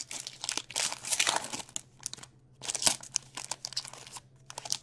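Clear plastic wrapper of a hockey card pack crinkling in several bursts as it is handled and the cards are pulled out of it.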